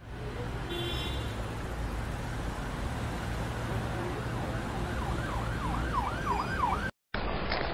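Car engine running steadily as a car pulls in, with a quick, repeating siren-like wail, about two sweeps a second, starting about five seconds in. The sound cuts out briefly near the end.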